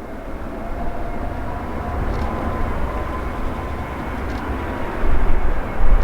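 Airbus A321neo's Pratt & Whitney geared turbofans whining faintly on approach under a steady roar of wind on the microphone. The wind buffeting grows louder and gustier about five seconds in.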